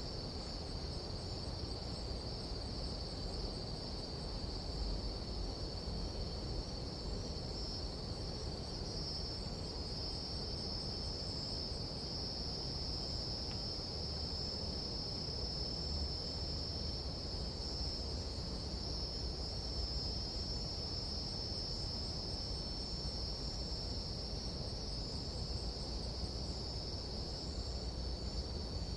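Nighttime insect chorus: a continuous, high, unbroken trill of many insects, over a low steady rumble.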